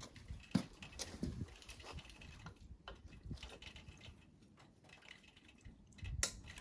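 Scattered light clicks and taps of small metal parts and hand tools as a cotter pin is worked out of the rack mount of a Honda ATC200ES. They are irregular, with a sharper click near the end.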